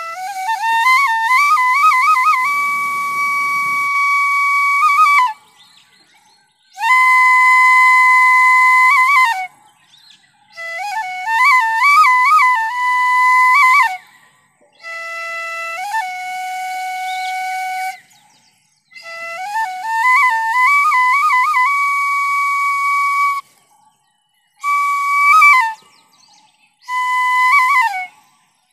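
Bamboo transverse flute (bansuri) playing a solo melody in about seven short phrases separated by brief pauses, with quick trills and long held notes, phrases often ending in a downward slide.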